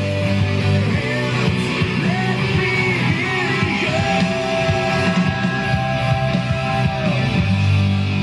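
Rock song with singing and electric guitar played loud through a JBL PartyBox 100 speaker with bass boost on. Long held, wavering sung notes over a heavy bass line that thins out for a few seconds and comes back strongly near the end.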